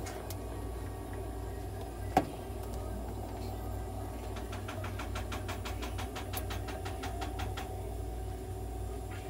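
Nebulizer machine running with a steady low hum as it feeds medicated mist into a cat's treatment cage. One sharp click about two seconds in, and a quick run of faint ticks, about eight a second, for some three seconds from around the middle.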